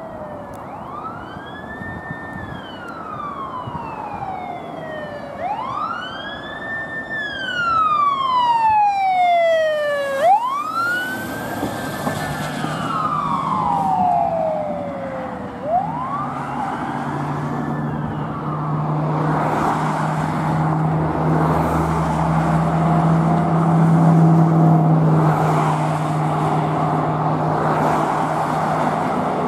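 Fire engine siren on a wail, sweeping up quickly and falling slowly about every five seconds, four times. After about sixteen seconds the siren stops, and a steady engine drone with road and traffic noise carries on as the fire engine drives past.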